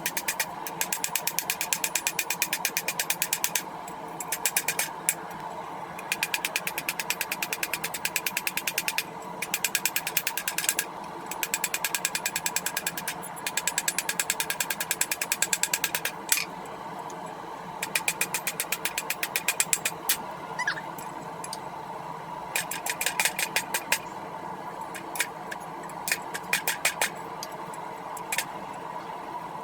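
Rapid, evenly spaced hammer blows on the hot steel of a rail-spike blade as it is trued up, coming in bursts of one to four seconds, about eight strikes a second, over a steady forge hum.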